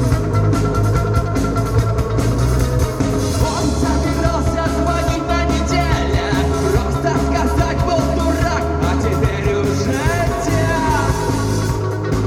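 Rock band playing live: a full band with a steady drum beat and sliding melodic lines over it.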